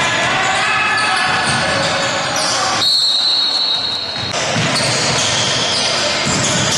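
A basketball bouncing on a hall court during play, and about three seconds in a referee's whistle blown once, held steady for about a second and a half.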